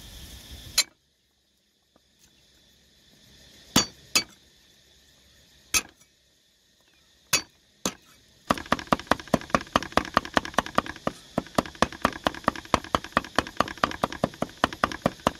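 Cleaver chopping garlic on a round wooden chopping block: a few single knocks, then from about halfway through a fast, even run of chops, about six a second.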